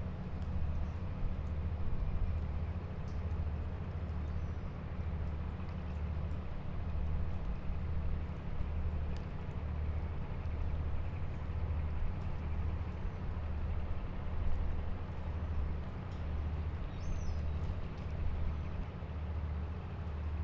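Harbor ambience dominated by a low engine rumble that throbs steadily about once a second, like a boat's engine running at idle. A few faint clicks and knocks sound here and there over it.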